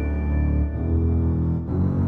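Organ music: sustained low bass notes holding under the texture, moving to new pitches about a second in and again near the end.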